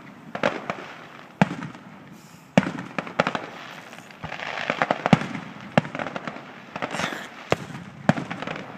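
Aerial fireworks going off: about ten sharp bangs spread through, with crackling between some of them.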